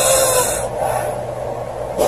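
Woman snoring: a loud, hissing breath that ends under a second in, followed by a quieter, lower breathing sound.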